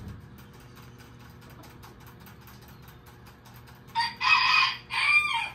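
A rooster crowing once, about four seconds in. It is a loud call of several parts, and the last part drops in pitch.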